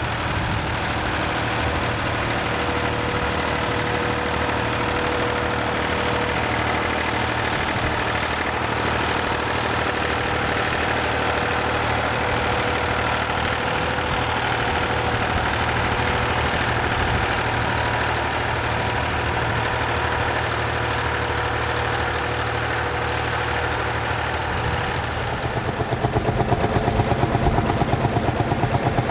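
Tractor engine running steadily. About 25 seconds in, the sound turns louder into an evenly pulsing engine beat.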